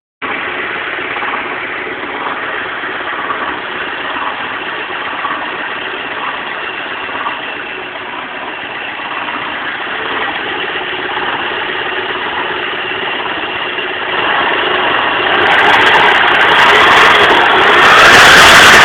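Car engine running at idle with a noise the owner finds strange; the sound grows louder and brighter about three-quarters of the way in.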